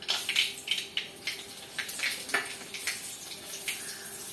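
Mustard seeds popping and dried red chilli pieces frying in hot coconut oil in a wok-shaped pan: an irregular crackle of sharp pops over a steady sizzle.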